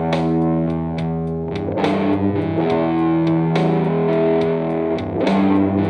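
Telecaster-style electric guitar played through a small combo amplifier with some distortion: blues chords struck and left to ring, a fresh stroke about every second and a half.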